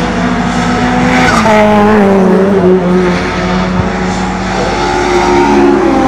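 Several historic racing cars' engines running hard as they pass through a corner, their notes overlapping. The pitch dips about a second in as they slow or change gear, then climbs again under acceleration.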